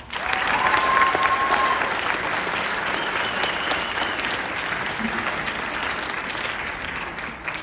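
Audience applauding after a speech. The clapping starts abruptly, is loudest in the first couple of seconds and eases slightly, with one held call from the crowd over it near the start.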